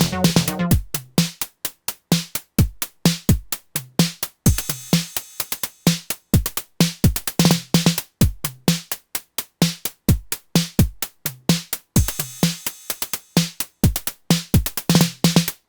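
Electronic drum machine pattern at 128 bpm: a steady four-on-the-floor kick with short pitched percussion hits and hissy high ticks. A busier synth layer drops out about a second in, leaving the drums alone.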